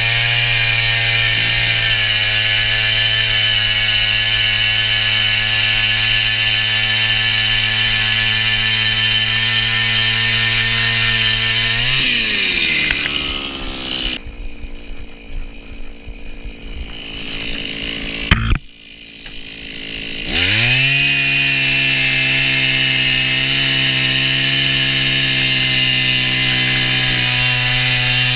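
Gas-powered ice auger with an 8-inch bit running at full throttle, steady under load as it bores through the ice. About twelve seconds in the engine winds down and drops to a low, uneven idle as the bit comes out of the finished hole. A single sharp knock comes near the end of that lull, and the engine then revs back up to full speed and drills steadily again.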